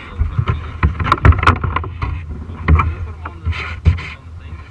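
Irregular knocks, clicks and low thumps on a plastic kayak, carried through the camera mounted on its deck, from an angler handling a landed bass and his landing net. The knocks cluster about a second in and come again near three and four seconds in.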